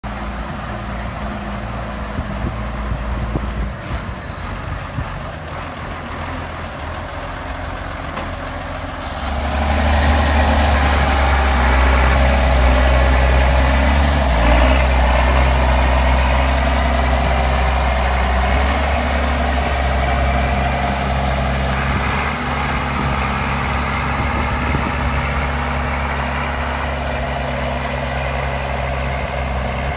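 County 1164 tractor's turbocharged six-cylinder diesel engine running steadily at low revs, then opening up sharply about nine seconds in. It stays at a louder, higher-revving run that eases off a little toward the end.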